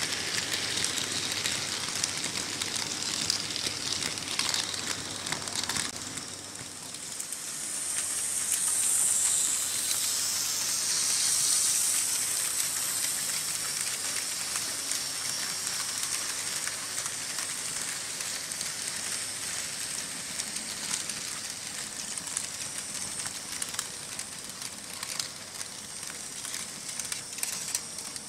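Märklin H0 model trains running on stamped-steel M-track: a steady fine clatter and hiss of small metal wheels over the rails and joints, several trains at once, swelling louder about a third of the way in.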